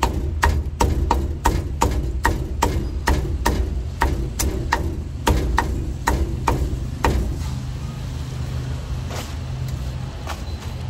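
Meat cleaver chopping through roast duck on a thick wooden chopping block, about three sharp chops a second, stopping about seven seconds in, followed by a few lighter knocks. A steady low rumble sits underneath.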